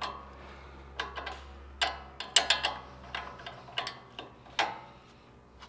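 Irregular sharp metallic clicks of a 17 mm wrench working the nut off the front sway bar end link, about one every half second.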